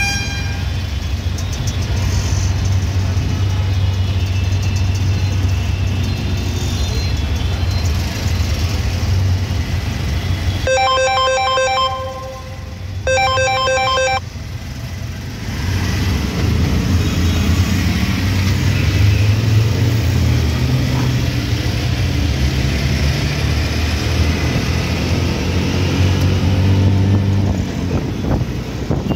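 An auto-rickshaw's engine running steadily in traffic, heard from the passenger seat. About a third of the way in, a phone ringtone sounds twice, each ring about a second long, and the engine sound drops out briefly.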